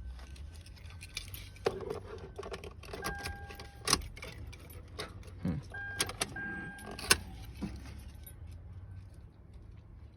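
Car keys jangling and clicking on their ring, with a few short beeps in the middle.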